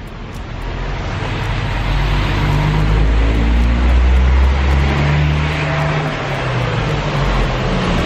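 Road traffic on a wet street: a motor vehicle's engine and tyres growing louder as it passes close, loudest about four to five seconds in, over steady traffic noise.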